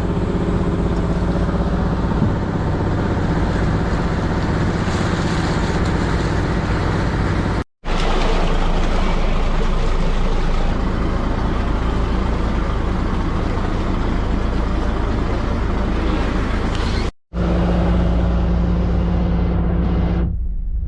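Fishing boat's engine running steadily under way, a constant drone with rushing water and wind noise. It cuts out completely for an instant twice, about 8 and 17 seconds in.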